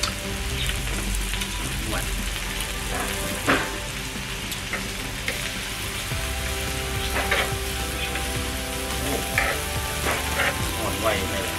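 Pork belly and greens sizzling and frying on a hot tabletop grill pan, with tongs tapping and scraping against the pan a few times as the meat is turned.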